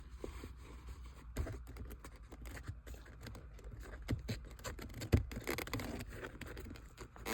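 A shifter boot being worked down over the gear lever into the console surround: scraping and rustling with scattered small clicks and knocks, the loudest knock about five seconds in.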